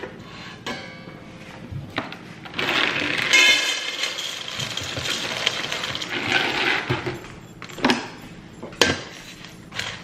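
Dry dog kibble poured from a plastic container into a stainless steel bowl, a rattling rush lasting about four seconds. Near the end come three sharp clanks of a spoon against a pan as chicken scraps are scraped into the bowl.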